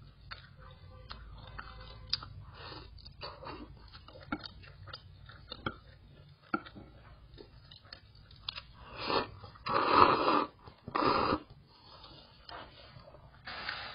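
A person eating noodles with chopsticks: soft chewing and small mouth clicks, with a few louder bursts of noise about nine to eleven seconds in.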